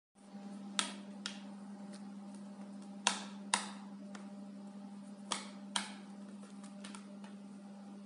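Sharp light clicks, mostly in pairs about half a second apart, every couple of seconds: a cockatiel's claws tapping on a wooden tabletop as it walks. A steady low hum lies underneath.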